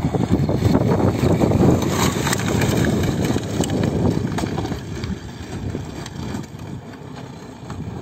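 Motorcycle engines running at low revs on bare rock, with wind buffeting the microphone. For the first four seconds the KTM 390 Adventure's single-cylinder engine is close and loud; after that the sound is fainter as a second bike rides away.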